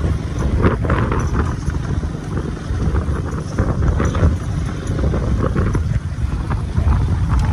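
Motorcycle riding over a rough dirt road, heard on the rider's own camera: a steady low rumble of engine, tyres and wind buffeting the microphone, with irregular knocks and rattles from the bumps.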